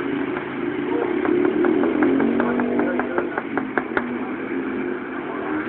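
A motor vehicle's engine running close by, growing louder for a couple of seconds and then easing off, with a quick run of sharp clicks about a second in that lasts around three seconds.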